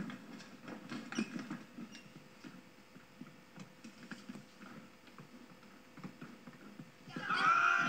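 Film soundtrack heard through a screen's speaker: faint scattered clicks and rustles, then a loud wavering voice calling out about seven seconds in.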